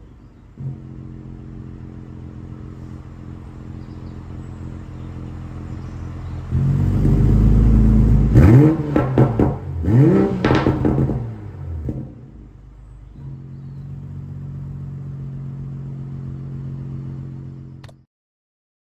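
Toyota GR Supra mk5's 3.0-litre B58 turbocharged straight-six, on a stage 1 remap, idling through a Remus exhaust. About six and a half seconds in it gets louder, then gives two quick revs that rise and fall, and settles back to idle. The sound cuts off suddenly near the end.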